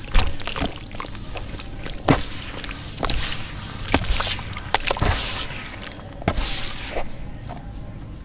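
A soft wet sand cake squeezed and crumbled by hand into a tub of muddy water, then stirred by both hands. There are repeated splashes and sloshing, about eight sharp ones, the loudest near the start.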